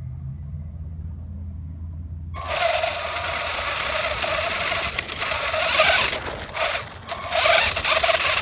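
Electric motor and gears of a small RC rock-crawler truck whining as it drives, picked up close by the phone riding on it. The whine starts suddenly about two seconds in, wavers in pitch, and drops out briefly near the end.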